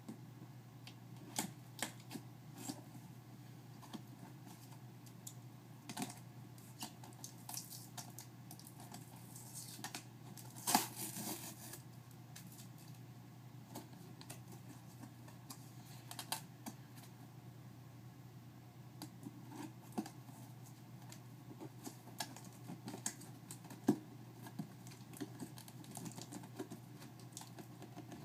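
Cardboard laptop box and its packing being opened by hand: scattered clicks, taps and scrapes of cardboard, with a short rustling, tearing burst about eleven seconds in, over a low steady hum.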